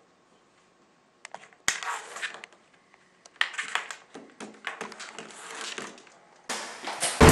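A hand handling small objects on a wooden tabletop: a sharp knock, then a run of irregular clicks, taps and rustles.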